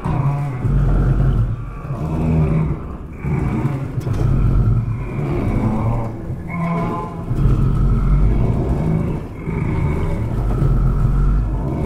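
Loud, deep roar from an experimental landscape instrument played live. It surges and eases every second or two, with higher whistling tones riding above a low hum.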